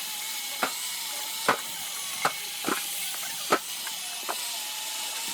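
Hydraulic log splitter running with a steady hiss and a faint, wavering whine, while a handful of short, sharp wooden knocks come at uneven intervals as oak firewood is split and handled.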